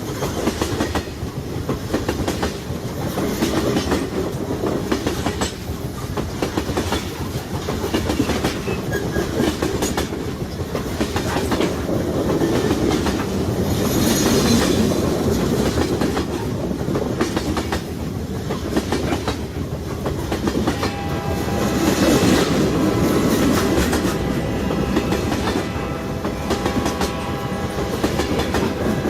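Freight train cars rolling past at speed: a continuous rumble with the clickety-clack of wheels over rail joints. A cluster of steady tones joins in during the last third.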